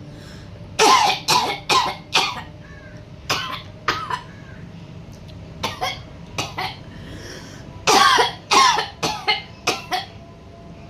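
Deliberate, forced coughing by a person without a real cough: a quick run of about four coughs, scattered single coughs, then another run of about five coughs near the end.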